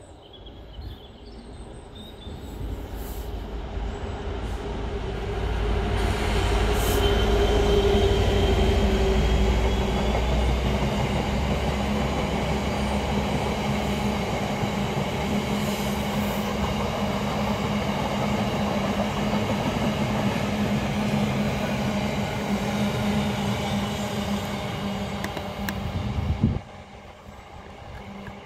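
Freight train passing on the main line: the locomotive's deep rumble builds over the first few seconds and is loudest around eight seconds in. A long steady rolling of the box wagons over the rails follows and cuts off suddenly near the end.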